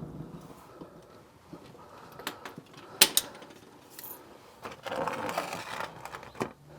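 Scattered clicks and knocks of small objects being handled, the sharpest about three seconds in, with a longer scraping rustle a little before the end.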